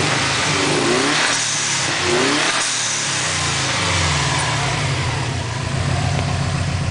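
2004 Subaru WRX's turbocharged flat-four engine running. About a second in it is revved up and drops back, then it idles with an even pulsing. Its computer reports misfires on all cylinders.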